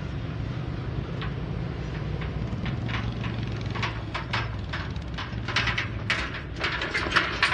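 Low, steady diesel engine rumble from locomotives, with a growing run of sharp rattles and clatters from an empty flatbed trailer being towed past, loudest near the end.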